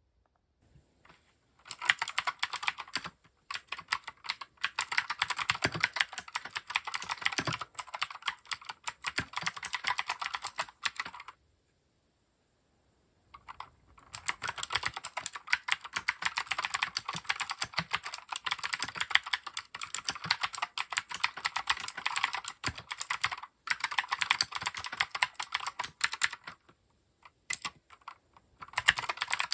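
Fast typing on a Keychron K6 mechanical keyboard: rapid runs of keystroke clacks, stopping for about two seconds a third of the way in and thinning to a few single strokes near the end before picking up again.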